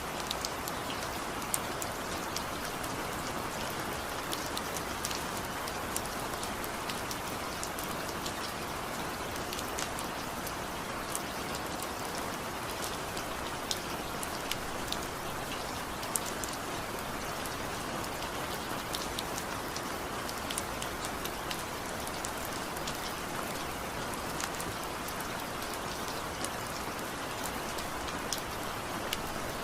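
Steady rain falling on a surface, a dense even hiss with scattered sharper drop ticks.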